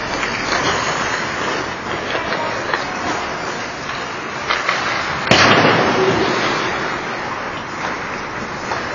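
Ice hockey game in an arena: steady rink noise with sharp clacks of sticks and puck, and about five seconds in a single loud crack that rings on for a second or so.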